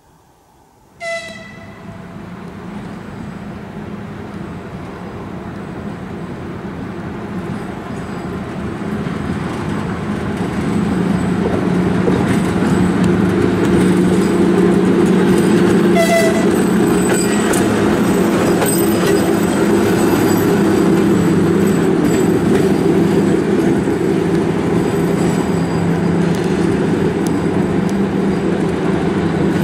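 TGM6V diesel shunting locomotive approaching and passing close, its diesel engine growing louder over the first ten seconds and then running loud and steady. It gives a short toot of its horn about a second in and another about halfway through.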